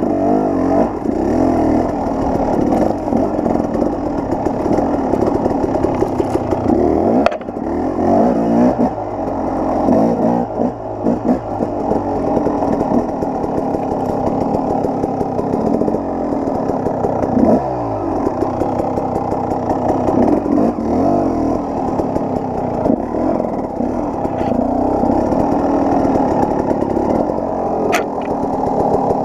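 KTM 300 XC-W dirt bike's two-stroke single-cylinder engine revving up and down under load while climbing a steep, rocky trail. It is interrupted by a few sharp knocks, the loudest about seven seconds in and near the end.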